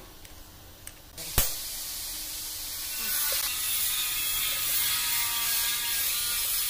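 Hand tools on a bare engine block: one sharp metallic knock about a second and a half in, then a steady hiss.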